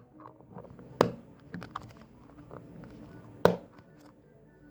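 Two sharp clicks about two and a half seconds apart, with faint small taps between: slime and its plastic pots being handled.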